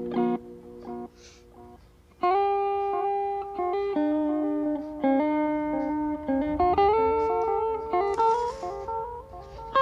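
Electric guitar played through an analog delay pedal with modulation. A chord stops right at the start and a few soft notes follow; from about two seconds in comes a slow line of single, sustained notes.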